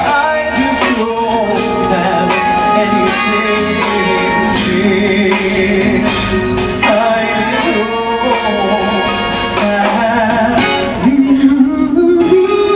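A singer with instrumental accompaniment performing a song, ending on a long held note about eleven seconds in.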